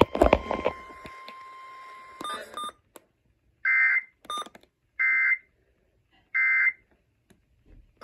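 Weather alert radio handled with a knock, then a steady electronic tone for about two seconds, followed by short identical beeps about every second and a quarter as its keys are pressed to step through the memory presets.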